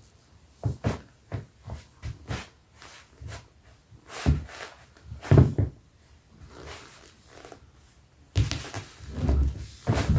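Leather Dr Martens boots rubbed against each other, making a run of short, irregular squeaks and rubs. Two heavier ones come around the middle, and a longer, busier stretch follows near the end.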